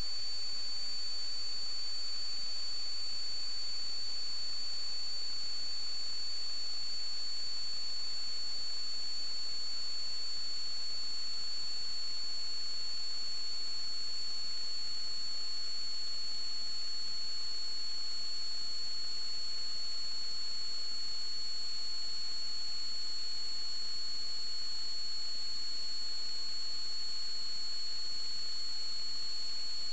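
Steady high-pitched electronic whine over a constant hiss from the sewer inspection camera's recording unit while it has no picture signal, the pitch sinking very slightly.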